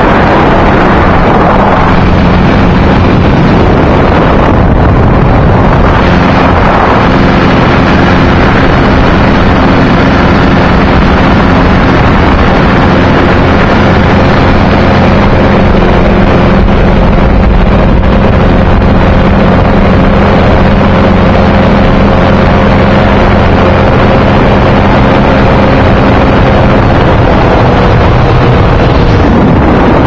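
Light aircraft's piston engine running steadily in flight, loud, with wind rushing over the microphone. The engine note dips slightly in pitch near the end.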